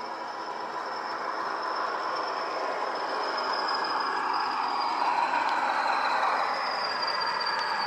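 ESU LokSound digital sound of a Class 40 diesel locomotive playing through a Bachmann model's two 27 mm round speakers: the English Electric engine running with a high, slightly falling whistle, getting louder as the model approaches.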